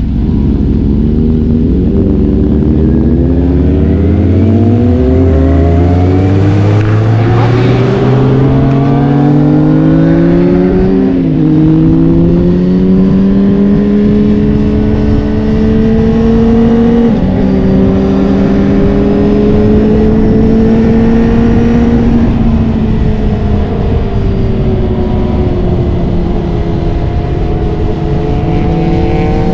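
Sport motorcycle engine running hard under acceleration. Its pitch climbs, drops sharply twice as it shifts up a gear and climbs again, then slowly falls off near the end as the throttle eases. A steady rushing noise runs underneath.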